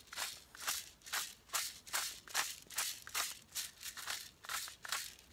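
Hand pepper grinder twisted back and forth, grinding black peppercorns in a steady run of short grinding strokes, about two and a half a second.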